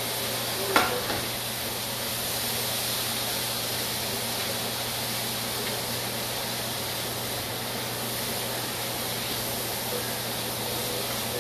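Fajita meat sizzling in a hot frying pan as it is stirred with a wooden spoon, with one sharp knock about a second in and a steady low hum underneath.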